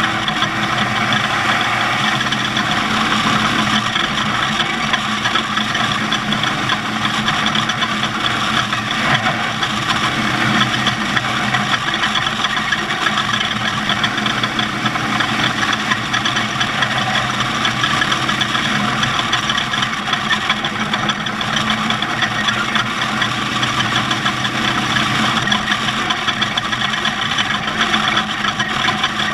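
Off-road race vehicle's engine running at a steady speed under a dense, steady rushing noise, with no revving or breaks.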